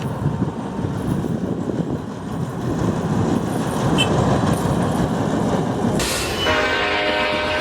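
Noise of a train running, then about six and a half seconds in a locomotive air horn starts sounding a steady chord of several notes.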